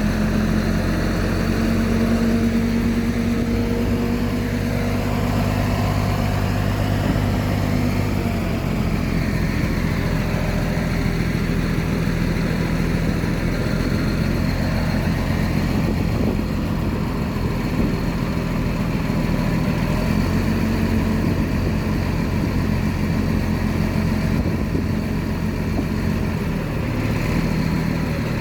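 Heavy diesel machinery engine running steadily; its note changes about a third of the way in and settles back about two-thirds of the way through.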